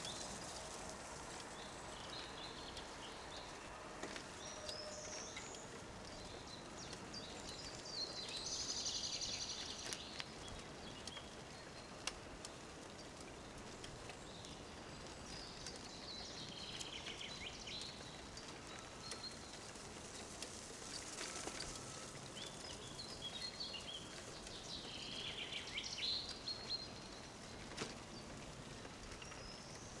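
Woodland songbirds singing now and then, in short bursts of high trills and chirps, the clearest about eight, sixteen and twenty-five seconds in, over a steady low background rustle. A single sharp click about twelve seconds in.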